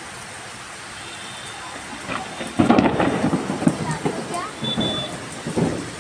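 Steady heavy rain, then about two and a half seconds in a sudden loud rumble of thunder that rolls on in waves.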